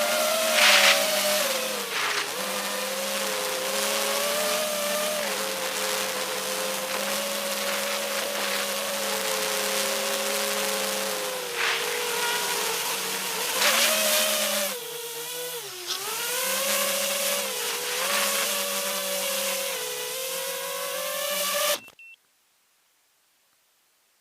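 FPV quadcopter's brushless motors and propellers whining, the pitch rising and falling with the throttle, with bursts of wind rush on two fast passes. The whine drops away briefly near the middle of the second half, then the sound cuts off abruptly near the end.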